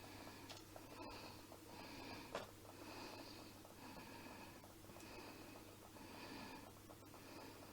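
Faint hiss of a home-made methylated-spirits burner alight, its flame rising and falling about once a second, with one light click a couple of seconds in.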